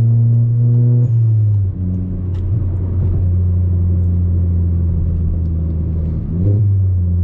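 Turbocharged VW Golf engine running steadily at road speed. Its note drops a step about a second and a half in, holds, then climbs back up near the end.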